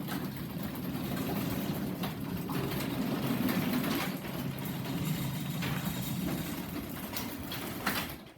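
Chain-drive garage door opener running as the door closes: a steady motor hum with the chain rattling and a few sharp clicks, stopping suddenly about eight seconds in.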